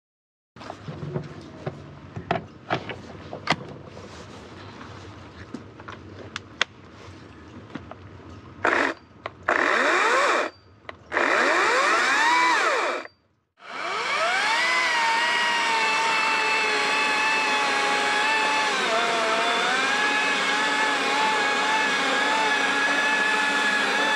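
Battery-powered electric chainsaw: after several seconds of clicks and knocks, it is run in a few short bursts, its motor whine rising each time. After a brief stop it runs steadily, its pitch dipping now and then.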